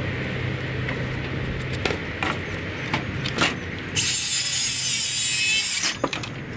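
A Makita cordless circular saw cutting through a length of timber, a loud high whine of about two seconds starting about four seconds in and cutting off suddenly. Before it come a few knocks and clatters of timber being handled.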